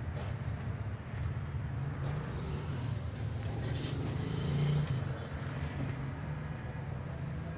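A motor vehicle engine running with a steady low hum that swells briefly about four and a half seconds in.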